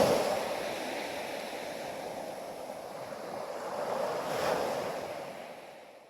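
Ocean waves washing in, loud at first and then easing, swelling again about four seconds in before fading out.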